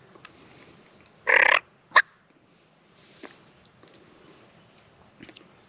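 Wild turkey calling close by: one short, loud call about a second in, followed half a second later by a single sharp note.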